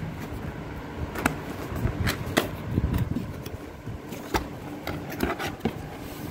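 A cardboard box lid being pulled open by hand: paper scraping and sliding, with a few sharp taps and knocks.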